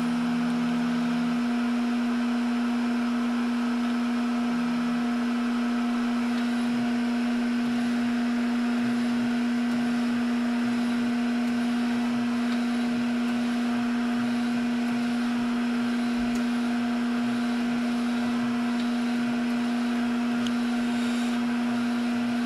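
Epson F2100 direct-to-garment printer running while it prints a shirt: a steady machine hum with one strong low tone.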